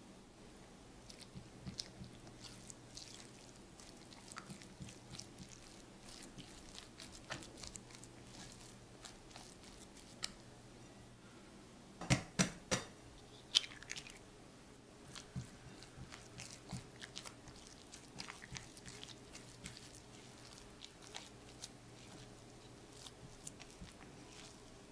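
Silicone spatula stirring and scraping sticky choux pastry dough in a glass bowl as egg is beaten in: soft irregular squelches and light clicks. About halfway through comes a quick cluster of sharp taps as a fresh egg is cracked.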